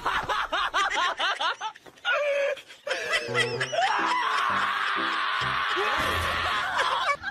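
A black-and-tan Shiba Inu screaming as it is restrained and its paw is handled. Quick repeated yelps fill the first two seconds, then a long raspy scream from about four seconds in cuts off near the end.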